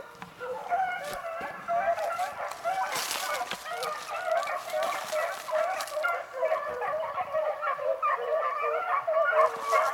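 A pack of beagles baying together, many overlapping voices crying without a break: hounds giving tongue as they run a rabbit's track.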